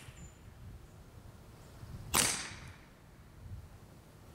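.25 caliber Evanix Viper semi-automatic PCP air pistol firing one shot about two seconds in: a sharp report that fades over about half a second.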